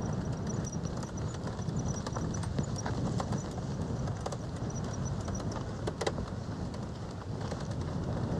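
Steady low rumble and wind noise from travel along a rough asphalt road, with scattered clicks and rattles. The sharpest click comes about six seconds in.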